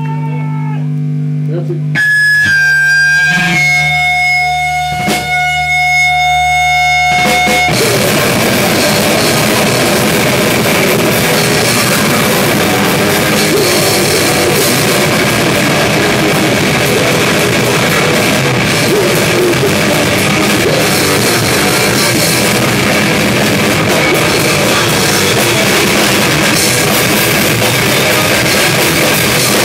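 Live rock band with electric guitar and drum kit. It opens with sparse, held guitar notes ringing out, then about eight seconds in the full band comes in loud, with drums and guitars playing densely to the end.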